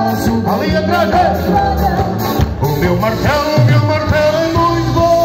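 Live amplified band music: accordions, electric guitar, bass and drums playing an upbeat tune, with a lead vocal singing over it.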